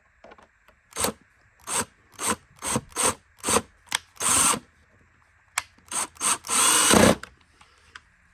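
Power screwdriver running in short bursts, about a dozen quick runs with two longer ones near the middle and near the end, driving the screws that hold the vacuum's brush plate.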